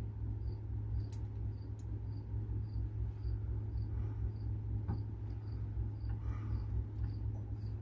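A cricket chirping steadily, about two chirps a second, over a low steady hum, with a few faint clicks of tools being handled.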